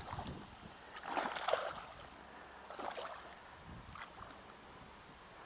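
Hooked bowfin splashing at the surface of shallow water in a few short bursts, the loudest about a second in.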